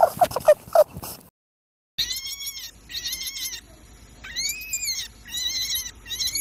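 Rabbit sounds: a quick run of short low-pitched squeaks, about six a second, that stops after about a second. After a short pause come a series of high-pitched squeals, each about half a second long, some rising and falling in pitch.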